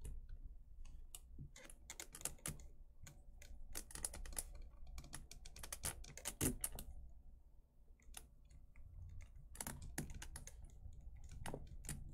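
Hard plastic statue parts clicking and tapping against each other as they are handled and pushed into place: a run of small, irregular clicks, faint, with a brief pause about seven seconds in.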